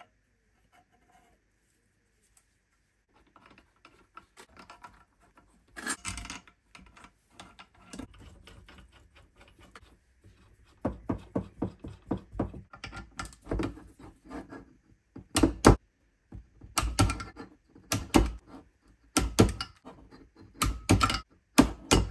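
Metal parts of a BMW S38 oil pump and its pickup being handled and fitted together: scattered light clicks and rattles at first, then a run of sharp knocks, loudest in the second half.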